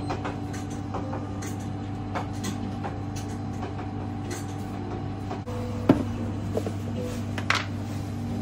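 Steady hum of kitchen machinery with scattered light clicks and clinks from a metal egg-wash cup, its lid and a pastry brush being handled. There is a sharp knock about six seconds in and another clink about a second and a half later.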